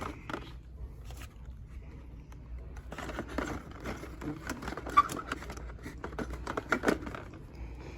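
Plastic clicking, clacking and scraping of blister-packed die-cast toy cars being handled and shuffled through, with a sharper clack about five seconds in.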